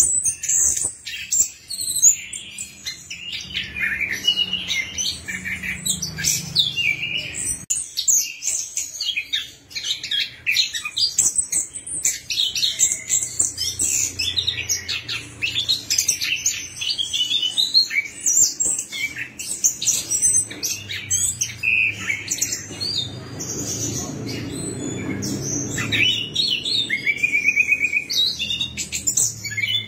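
Chestnut-capped thrush (anis kembang) singing a fast, continuous, varied song of chirps, whistles and short trills. A low rumble swells in the background twice, a few seconds in and again past the middle.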